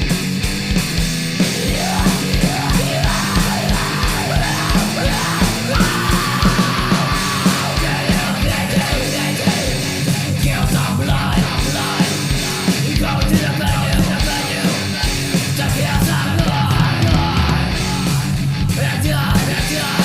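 Fast, aggressive heavy metal recording: distorted guitars and bass over a rapid, steady kick-drum pulse, with shouted vocals over it.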